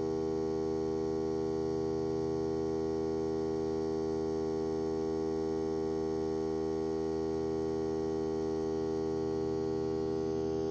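Hart 20-volt cordless 2-gallon air compressor running continuously with a steady, even hum while it slowly inflates a car tire through the hose.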